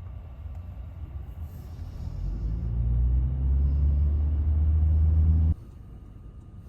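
Low rumble of a vehicle engine that swells about two seconds in into a loud, deep, steady hum, then cuts off abruptly about five and a half seconds in.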